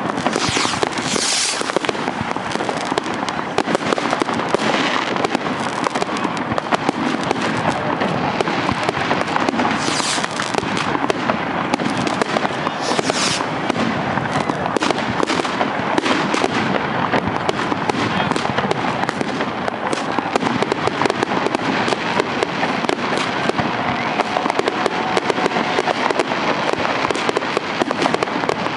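Many fireworks going off at once: a dense, continuous crackling and popping of rockets and firecrackers, with a few short high hisses early on and around the middle.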